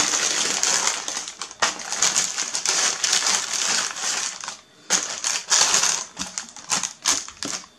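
Baking paper crinkling and rustling as it is handled and peeled away from a freshly baked sponge cake, in uneven stretches with a brief pause a little before five seconds in.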